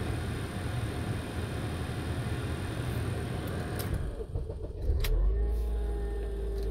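A 2008 Honda Accord that has just been started, running with a steady rough noise. About four seconds in the noise drops away and a sharp click follows. After that a steady low hum with a faint whine carries on.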